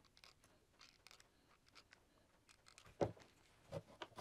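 Faint clicks and taps of small wooden model parts and a hot glue gun being handled, then a sharp knock about three seconds in and two softer knocks as the miniature knee wall is pressed into place.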